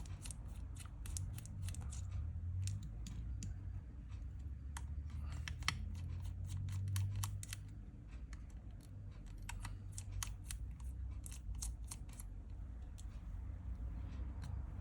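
Small precision screwdriver undoing the two pentalobe screws at the bottom of an iPhone 6s: irregular light clicks and scratchy ticks of metal on the tiny screws and case, over a low steady hum.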